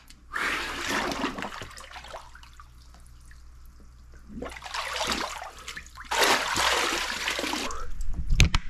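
Cold water sloshing and splashing in a cold-plunge tub as a man dunks his head under, then goes calm for a couple of seconds. Splashing picks up again as he comes up, and the loudest stretch, water pouring and splashing as he stands and steps out of the tub, comes near the end, followed by a single knock.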